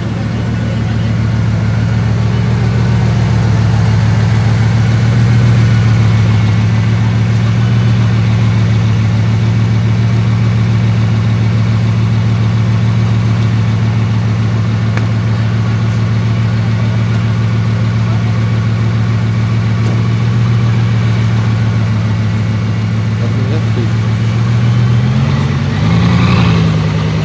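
Bugatti Veyron 16.4 Pur Sang's quad-turbocharged 8.0-litre W16 idling with a steady, deep note. Near the end the revs rise briefly and settle again.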